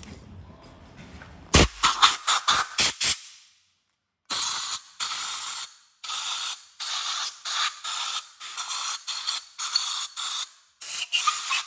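Hand cleaning of an aluminium cylinder head's gasket surface: a quick run of wire-brush strokes about one and a half seconds in, then a steady series of rasping scraping strokes, about two a second.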